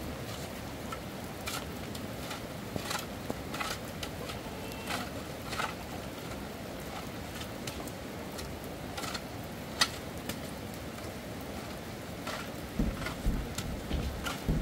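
Steady rain with scattered louder drops striking a surface, one sharp knock about ten seconds in. Low wind gusts buffet the microphone near the end.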